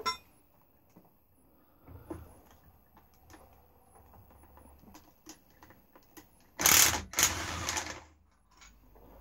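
Socket ratchet at work on bolts: scattered clicks and taps, then a loud rapid rattling of about a second, in two runs, about seven seconds in.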